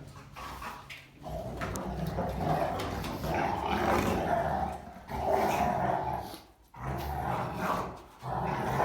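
Rottweilers growling while play-fighting, in long rumbling stretches with two short breaks near the end.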